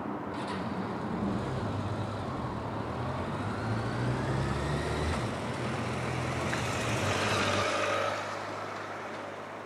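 A heavy vehicle running past with a steady low rumble and a faint whine that rises and falls in pitch. The sound grows louder, then drops off about eight seconds in.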